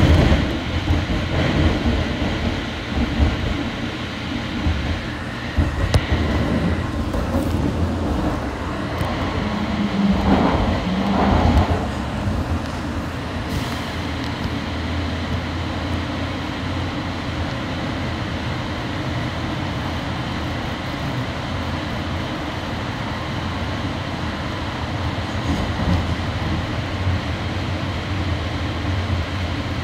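AirTrain JFK people-mover car running along its track, heard from inside the car: a steady rumble of wheels and drive. There are a few knocks in the first several seconds and a brief louder swell about ten to twelve seconds in, then the sound evens out.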